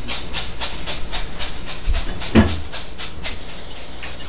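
Airsoft gun magazine being loaded, clicking steadily about four times a second, with one thump about two and a half seconds in.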